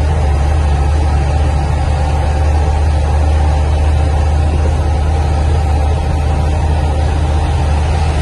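Steady low rumble of a car's engine and its tyres rolling on a gravel road, heard from inside the cabin.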